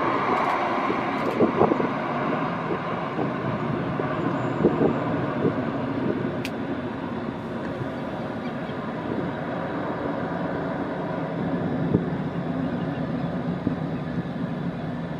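Jet engines of an Airbus A319 at takeoff power just after liftoff, a steady roar that slowly fades as the airliner climbs away.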